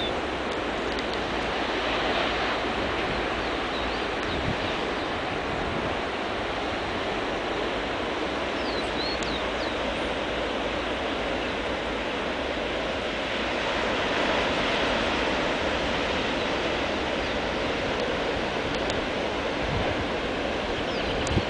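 Ocean surf breaking on a beach, a steady wash of noise that swells gently a couple of times as sets come in. A few short, high bird chirps come through about halfway and near the end.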